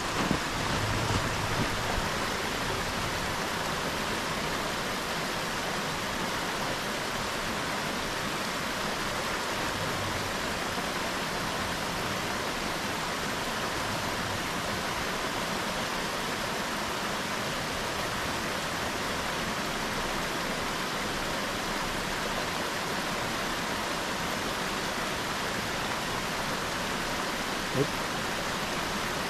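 Creek rushing over rocks, a steady, even hiss of running water. A truck's engine is faintly heard in the first couple of seconds, and a single sharp click comes near the end.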